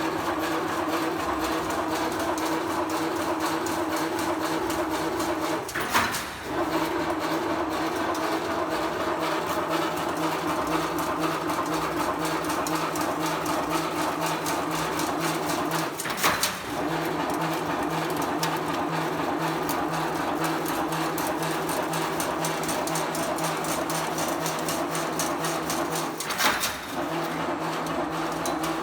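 CNC chain-link (B40) mesh weaving machine running with a steady hum and a fast, even mechanical ticking. A loud sharp clack comes three times, about ten seconds apart, each followed by a brief lull in the running.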